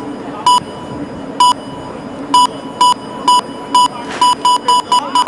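Electronic music: a high electronic beep repeating about once a second, then quickening to several a second near the end, as in a dance track's build-up.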